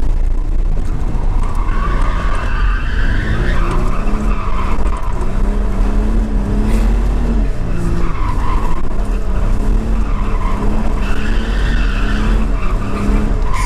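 1999 Ford Mustang heard from inside the cabin while drifting: the engine revs up and down under a heavy rumble, and the tyres squeal in two long slides.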